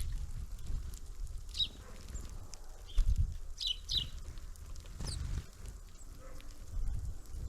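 Small birds at a winter feeder giving a few short, high chirps that sweep downward, over a low rumble.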